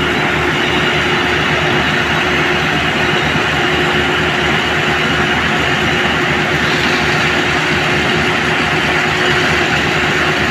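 Heavy engine-driven concrete machinery running steadily, a low pulsing engine hum under a loud broad mechanical noise. The noise grows a little harsher about two-thirds of the way through.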